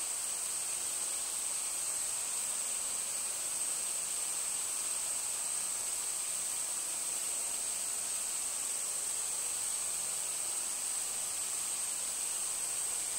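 Steady high-pitched hiss with a constant thin high whine running through it, unchanging throughout.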